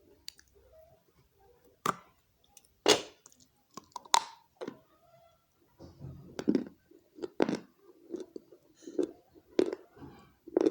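A person biting and chewing pieces of baked red clay pot: a few sharp crunches as pieces are bitten off, then steady chewing at a little over one chew a second.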